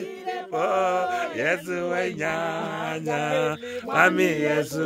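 People singing and chanting together in celebration, a low note held steadily under higher voices that glide up and down.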